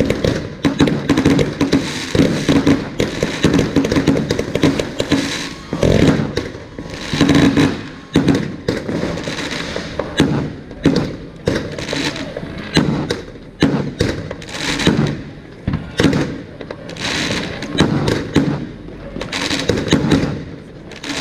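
Fireworks going off overhead: a loud, irregular run of bangs one after another with hardly a break.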